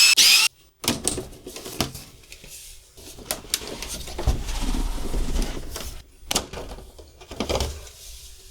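Plastic housing parts of a portable air conditioner being handled and pulled apart: scattered clicks and knocks with a stretch of rubbing and scraping, as the side panels come off. A brief high-pitched whir sounds at the very start.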